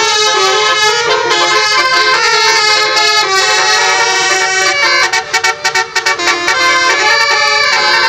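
A tour bus's Basuri 'telolet' musical air horn, several trumpets sounding together and playing a melody note by note. About five seconds in it plays a run of quick, choppy toots, then goes back to held notes.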